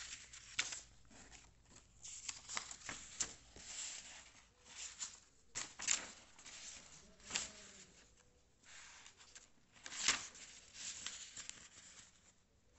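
A sheet of paper rustling and sliding as it is moved on a desk, with a string of short crackles and scrapes; the sharpest comes about ten seconds in.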